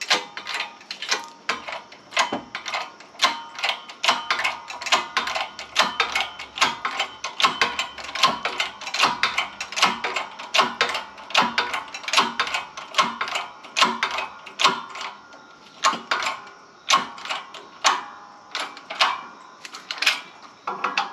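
Hand ratchet clicking in a steady run of strokes, about three clicks a second with brief pauses, as it turns the screw of a bearing press tool to press a new wheel bearing into place.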